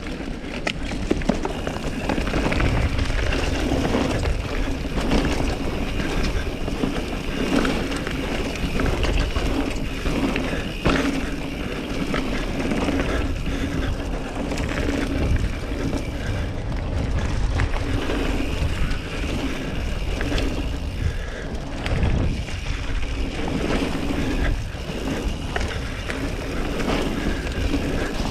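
YT Capra full-suspension mountain bike descending a dirt trail at speed: knobby tyres rumbling steadily over packed dirt and leaves, with sharp knocks from the bike over bumps now and then and wind buffeting the camera microphone.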